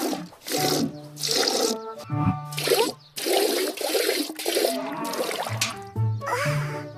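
Cartoon background music interrupted by repeated short, noisy sound effects, several a second apart.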